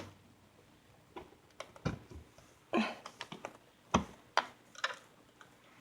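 Scattered small clicks and taps of a laptop charger's plug being fumbled against the side of a Chromebook, poked into the headphone jack instead of the charging port. The clicks come irregularly, about a dozen, the sharpest around two, three and four seconds in.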